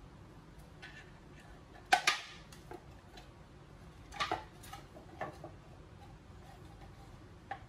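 Shoe cabinet parts knocking and clicking together as the cabinet body is put together by hand. A loud pair of knocks about two seconds in, a cluster of clatters around four to five seconds in, and a single click near the end.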